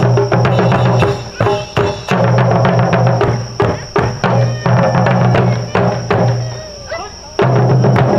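Taiko ensemble drumming on shoulder-slung okedo-daiko and a large drum on a stand, a fast run of strikes. The drumming drops back briefly about a second in, eases off again later, then comes back suddenly and at full force near the end.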